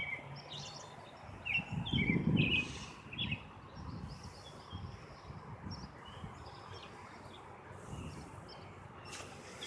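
Small songbirds chirping repeatedly over a steady outdoor hush. A short, low rumble about two seconds in is the loudest sound.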